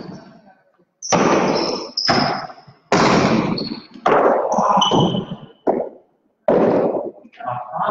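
Hard jai alai ball (pelota) hitting the fronton's walls and floor: about seven sharp cracks, roughly one a second, each echoing through the court, several with a brief high tone.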